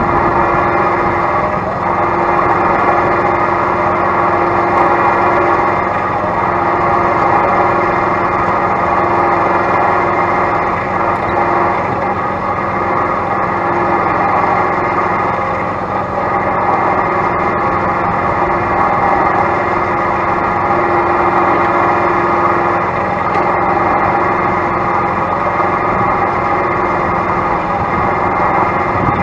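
An engine runs steadily and loudly, with no sharp changes in pitch or level.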